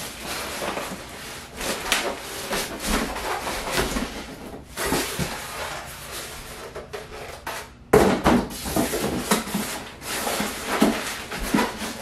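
Foam packing end caps being pulled off a boxed cutting machine and set aside: irregular rubbing, scraping and handling knocks, with a sudden louder knock about eight seconds in.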